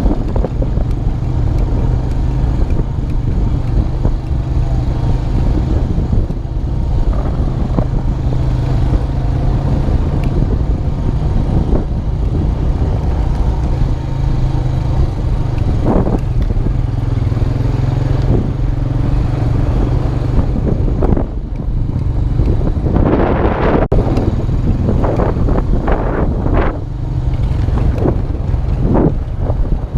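2002 Honda Rancher 350 4x4 ATV's single-cylinder four-stroke engine running steadily while being ridden off-road. Knocks and rattles come in about two-thirds of the way in and in clusters through the last third.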